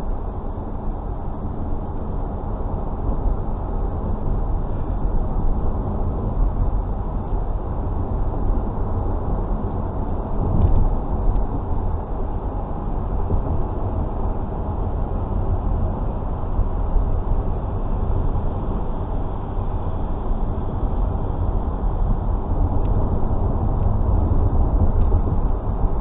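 Road noise of a moving car: a steady low rumble of tyres and engine, with a brief swell about ten seconds in.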